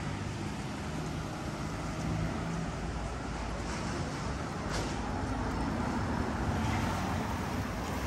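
Street traffic: car engines running on the road, with a steady background noise and a low engine hum in the first few seconds.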